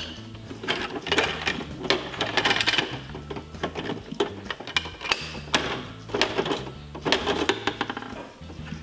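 Irregular clicks and rattles of hard plastic as a Bruder toy recycling truck's rear bin lifter is worked by hand, tipping a small plastic bin into the hopper, over background music.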